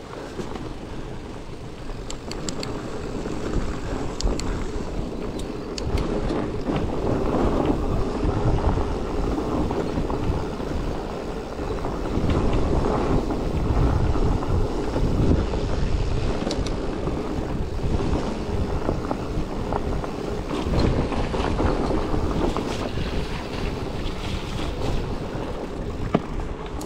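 Wind buffeting the microphone over the rumble and rattle of a loaded bikepacking bike rolling over rough, rocky trail, with scattered sharp knocks from the bike.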